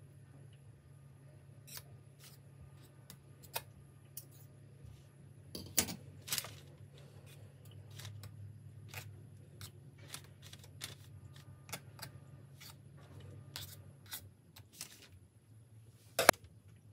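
Scattered light clicks and scrapes of a metal table knife on stainless-steel ring molds as mashed potato is smoothed flat, with one sharper click near the end. A low steady hum runs underneath and drops away near the end.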